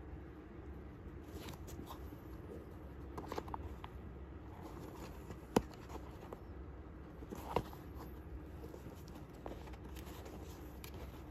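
Faint rustling and scraping as hands handle a new Norda 001 trail running shoe, fingers rubbing its upper and paper inserts. Two sharp clicks come about halfway through, a couple of seconds apart.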